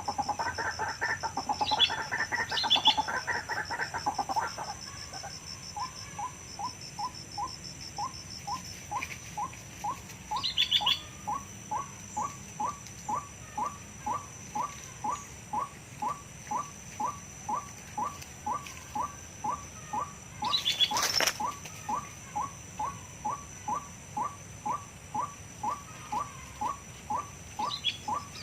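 White-breasted waterhen calls: a harsh, chattering burst of calls for the first few seconds, then a steady, monotonous series of short rising notes, about one and a half a second. A sharp click sounds about 21 seconds in.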